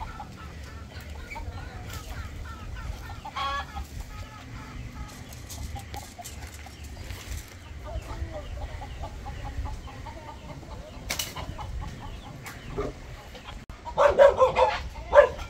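Chickens clucking on and off in short, faint calls, followed by a burst of louder, short calls about fourteen seconds in.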